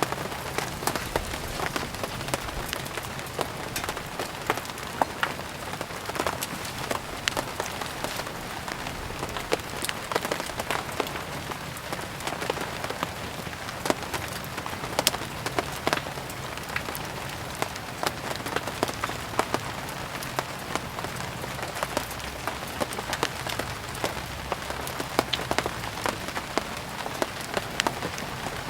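Steady rain falling, mixed with the irregular sharp crackle and pop of burning firewood.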